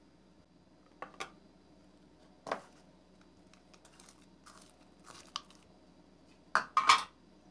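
Soft homemade slime squeezed and pulled by hand, giving a handful of short squishy, crackly noises. The loudest two come near the end.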